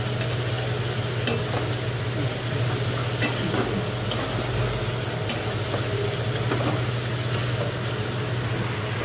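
Sliced okra frying in oil in an aluminium kadhai, sizzling steadily while a metal spatula stirs it, with a few sharp clicks of the spatula against the pan. A steady low hum runs underneath.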